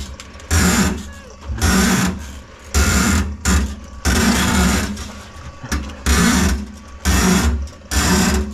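Electric drum-type drain-cleaning machine running, its motor humming under a regular rhythmic noise about once a second as the cable turns in a grease-clogged kitchen sink drain line.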